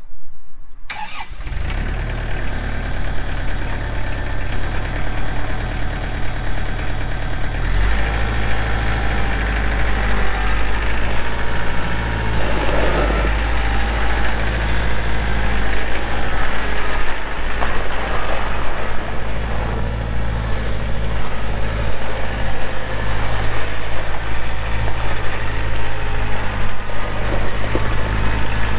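Kubota L3710 compact tractor's diesel engine starting about a second in and settling into a steady run. About eight seconds in its note changes and it gets a little louder as the engine is throttled up, and it keeps running while the tractor is driven.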